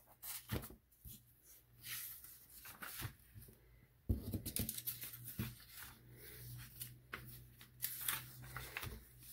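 Pages of a paper instruction booklet being turned by hand: a run of faint, irregular rustles and flicks, with a sharper page snap about four seconds in.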